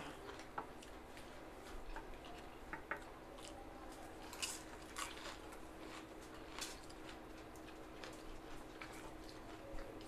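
Several people eating with their hands: chewing and mouth smacks, with irregular soft clicks as fingers pick through rice and fried food, over a faint steady hum.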